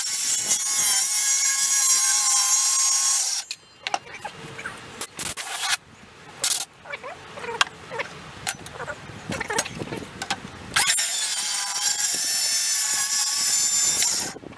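Cordless power saw running and cutting a slot in two bursts of about three seconds each, a steady high whine that stops abruptly. Quieter knocks and handling in between.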